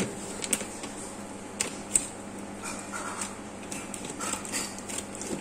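Plastic fish-food bag being handled: a few scattered sharp clicks and soft crinkles over a faint steady hum.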